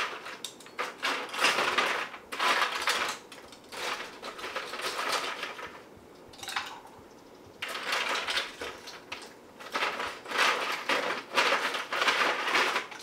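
Ice cubes clattering into a glass in repeated bursts as it is filled with ice, with a short pause about halfway.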